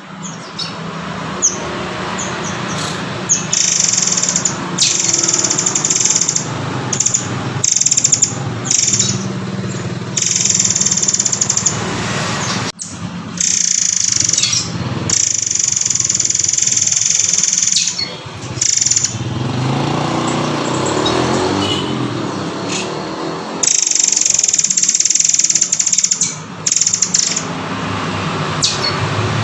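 Recorded song of a murai air (murai kopi), repeated high phrases with short pauses between them, over a steady background noise.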